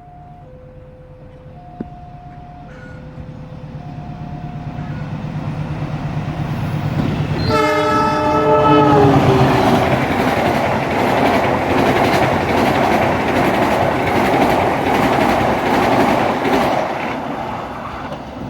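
Level-crossing warning signal sounding in two alternating tones as a train approaches, its noise steadily growing louder. About seven and a half seconds in the locomotive's horn blows for over a second, and the train then passes the crossing with loud, sustained wheel and engine noise.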